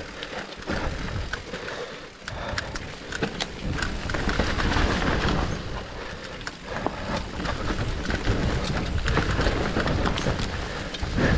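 Mountain bike descending rocky, leaf-strewn dirt singletrack: tyres rolling over dirt and stones with frequent knocks and rattles from chain and frame, over a low rumble of wind on the microphone.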